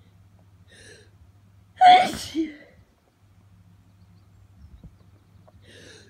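A person sneezing from hay fever: a faint breath drawn in, then one loud sneeze about two seconds in that trails off with a smaller second burst. Another faint breath in starts near the end.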